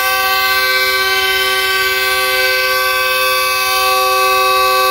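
Pakistan Railways GEU40 diesel locomotive's horn sounding one long, steady blast of several tones together, starting suddenly. It is the train's departure signal.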